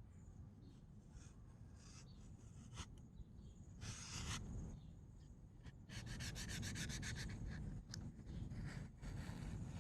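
Hand rubbing and scraping at dried-up Cosmoline on a lathe's surface, in short strokes, with a quick run of rapid strokes about six seconds in.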